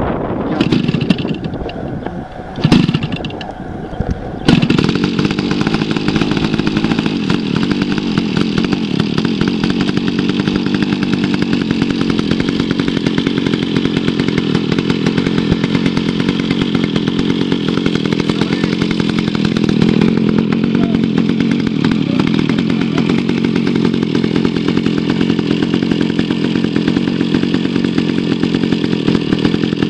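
Petrol two-stroke engine of a large radio-controlled model plane being hand-started: a few short sputtering bursts, then it catches about four and a half seconds in and runs steadily.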